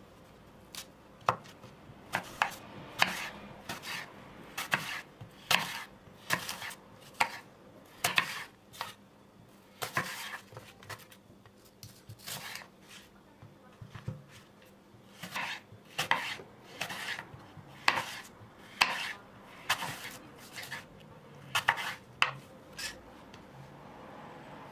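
A long, irregular series of sharp taps and knocks, roughly one to three a second, with short pauses between runs.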